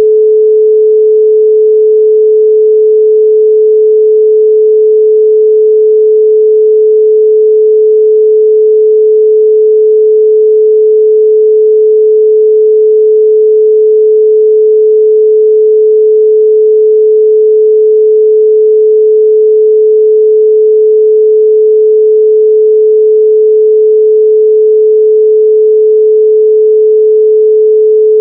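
Loud, steady 432 Hz pure sine tone: one unchanging pitch with no overtones.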